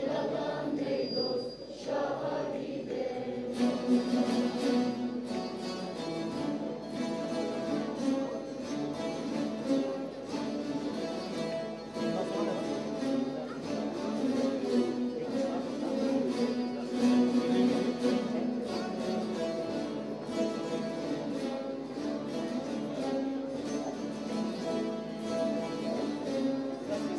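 A large ensemble of bağlamas (long-necked Turkish saz lutes) playing a tune together, the many plucked strings giving a dense, busy strumming texture.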